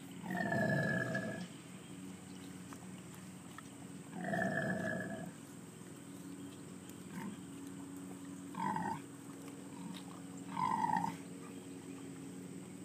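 Pigs calling: two calls about a second long, then two shorter ones, each with a held pitch.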